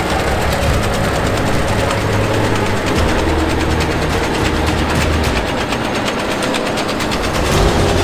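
Grimme Tectron 415 self-propelled potato harvester running while lifting potatoes: a low engine hum under a steady, dense, fast mechanical rattle and clatter.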